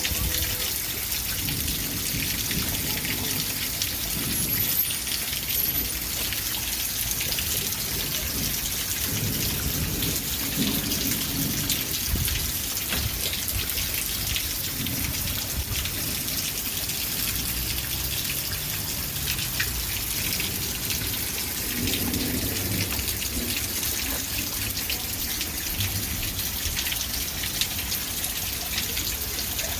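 Steady rain falling, a dense hiss full of small drop impacts, over low rumbling that swells and fades now and then.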